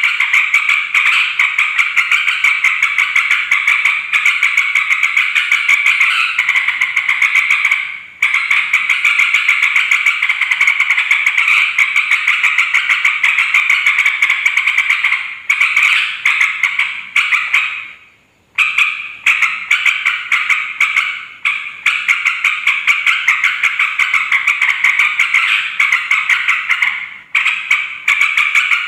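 A noisy flock of yellow-vented bulbuls chattering, a dense and rapid stream of repeated calls broken by a few short pauses.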